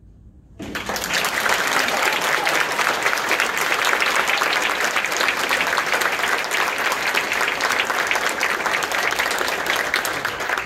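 Audience applauding: a room full of clapping breaks out suddenly about half a second in and keeps up steadily.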